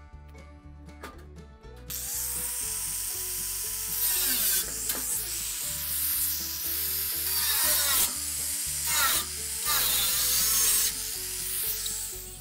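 Angle grinder with a cutting disc spinning up about two seconds in and cutting through the thin sheet-steel wall of a metal drum: a harsh, high-pitched grinding that gets louder several times as the disc bites, then stops near the end. Background music plays underneath.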